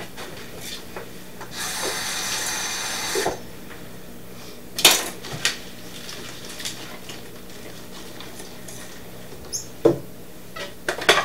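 A kitchen tap runs for about two seconds, then a few separate clinks and knocks of utensils and dishes on the counter.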